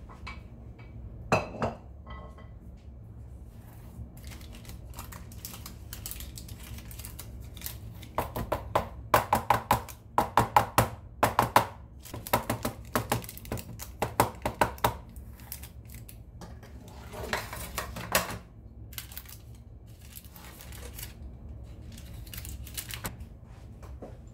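Irregular runs of sharp taps and clatter of a metal baking pan and a utensil against a stone countertop while cake batter is spread in the pan, over a steady low hum.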